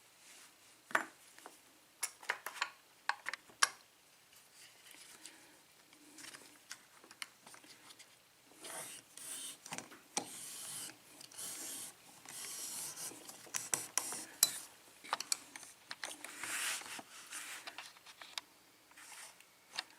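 Small metal clicks and scraping from handling a Schlage pin-tumbler lock: a few sharp clicks in the first few seconds, then a longer stretch of rubbing and scraping with scattered clicks.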